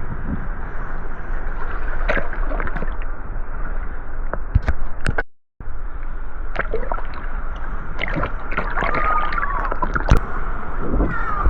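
Sea water sloshing and splashing close to the microphone in the surf, with scattered sharper splashes. The sound cuts out completely for a moment a little over five seconds in.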